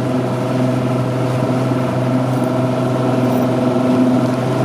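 Motorboat's outboard engine running at a steady speed while the boat is under way, a constant hum with a steady rush of wind and water over it.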